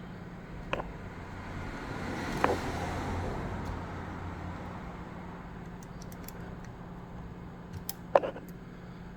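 A few short metallic clicks as a lock pick and tensioner work the sliders of an FTH Thirard Surveyor French pump lock, the loudest click near the end. Under them is a steady low hum, and a soft rushing sound swells and fades in the first half.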